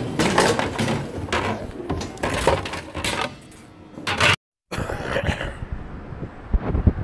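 Cutlery and crockery clattering and clinking on a tray in a string of short knocks. After a sudden cut about four and a half seconds in, steady outdoor street rumble with wind on the microphone and a few thumps near the end.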